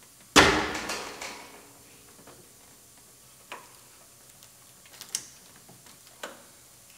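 A loud, sudden metallic clack about half a second in that rings away over about a second, then a few light clicks. This is an air-conditioning line's spring-lock coupling being worked open with a quick-disconnect tool.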